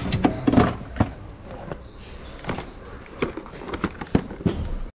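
Scattered clicks and knocks of handling as a cardboard camera box is drawn out from a glass display case shelf, over steady store background noise.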